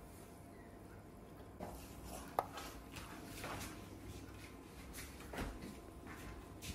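Light clatter of a metal spoon and kitchenware, with a sharp click about two and a half seconds in as the plastic lid of a mini cupcake maker is closed over the batter, then a few soft knocks.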